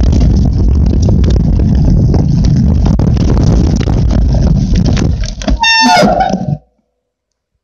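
Mountain bike rolling fast over a dirt trail: heavy wind buffeting on the microphone with rumble and rattle from the bike. Near the end a brief high squeal from the bike's brakes as it slows, then the sound cuts off suddenly.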